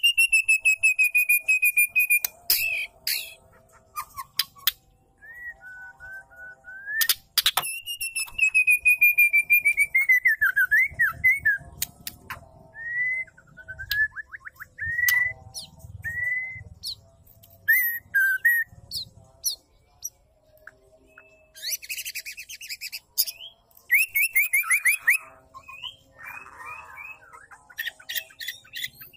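Female white-rumped shama calling: long rapid trills that fall slightly in pitch, short whistled notes, and harsh chattering near the end.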